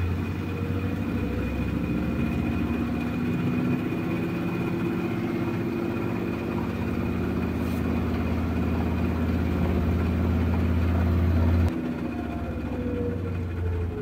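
Front-loading washing machine spinning its drum: a steady motor hum with a whine of several held tones. About twelve seconds in the sound changes abruptly and the whine starts to fall in pitch as the drum slows.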